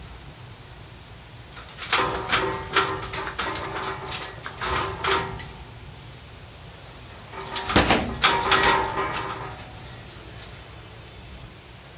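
A puppy barking and yapping in short bursts, one spell about two seconds in and another near eight seconds.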